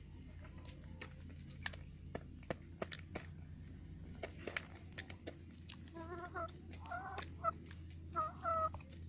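A hen pecking at dry kibble in a metal pan, her beak striking in sharp, irregular clicks. She gives a few short clucks in the last few seconds.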